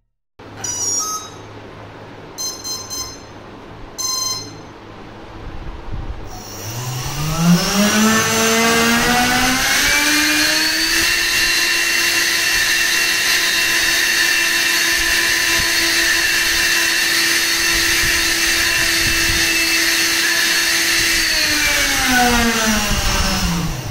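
A few short electronic beeps, then a 3D-printed 80 mm electric ducted fan with an 8-blade propeller, driven by a Racerstar 2500 Kv brushless motor. The fan spools up with a rising whine, holds steady at full throttle for about ten seconds, then spools down and stops just before the end.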